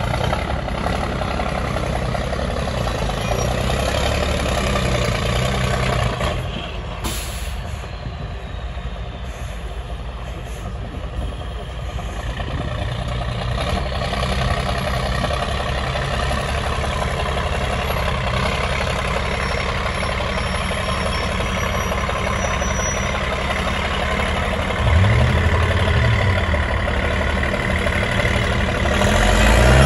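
MAN TGS 8x8 trial truck's diesel engine running under load as the truck climbs a steep dirt slope, with a short hiss about seven seconds in. Near the end the engine revs up and down, and it grows louder just before the end.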